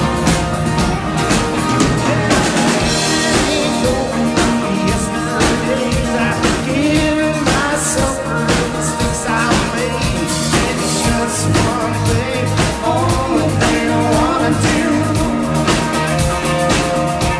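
Live rock band playing through a PA: electric and acoustic guitars, bass and a drum kit keeping a steady beat.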